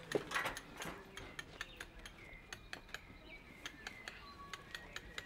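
Faint, irregular sharp metallic taps and clinks, about three or four a second, from masonry hand tools working on brickwork, with a brief ringing note after some strikes.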